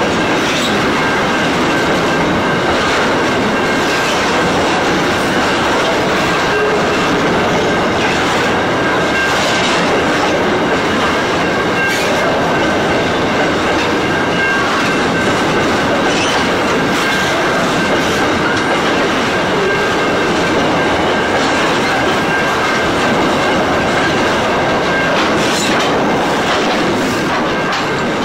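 Aurizon grain train's hopper wagons rolling past: steady wheel-on-rail noise with a clickety-clack of wheels over rail joints and a thin, steady squealing whine from the wheels. The noise eases near the end as the last wagon goes by.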